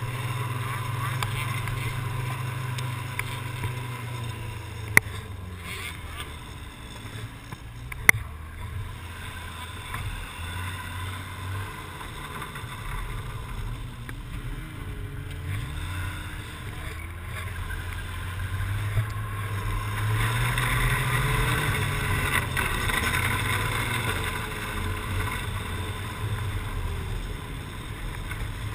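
Arctic Cat T660 four-stroke snowmobile engine running steadily underway, with wind noise on the helmet microphone. Two sharp clicks about five and eight seconds in, and the engine grows louder around twenty seconds in.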